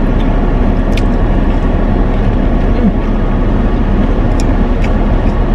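Steady rumble and hiss of a car's cabin with the vehicle running, with one short click about a second in.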